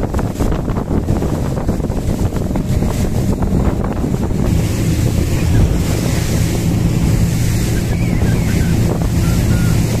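Heavy wind buffeting the microphone of a RIB boat under way, with the steady drone of its engine and water rushing past the hull.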